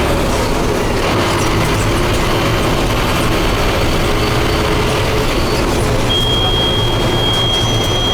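Scania DC9 five-cylinder diesel engine of a Scania F250HB bus, running steadily with a low rumble under heavy road noise. A thin, steady high squeal joins in about six seconds in.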